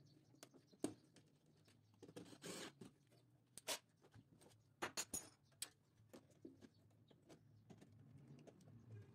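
Faint scattered clicks and light rustles of wires and plastic parts being handled inside an electrical panel. There is a short rustle about two seconds in and a quick cluster of clicks around five seconds in.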